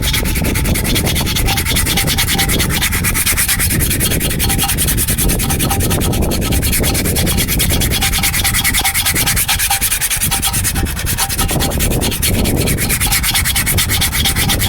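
80-grit sandpaper sanding the linings of BMW 320d rear brake shoes in steady rapid strokes, smoothing them and taking the glazed shine off the friction material.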